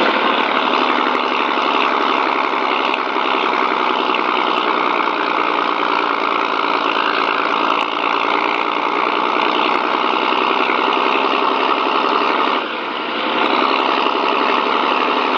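Turbocharged engine running with no load, a steady turbo whistle riding over the engine note. The sound drops briefly near the end, then comes back up.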